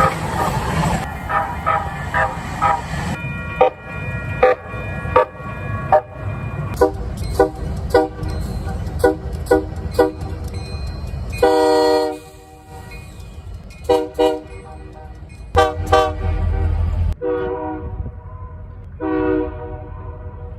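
Train air horn sounding a long series of short blasts, roughly one or two a second, over the rumble of a moving train. One longer, stronger blast comes about 12 seconds in, after which the rumble is quieter.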